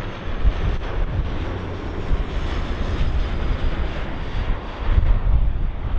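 An airliner's engines running loud and close, a broad rushing roar with a heavy, uneven low rumble that swells near the end.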